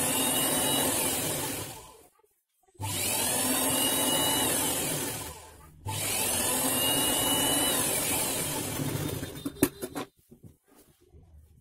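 Sewing machine stitching a seam in three runs: the motor whine rises as each run starts and falls away as it stops, with short pauses between them. A few sharp clicks follow near the end, then it goes quiet.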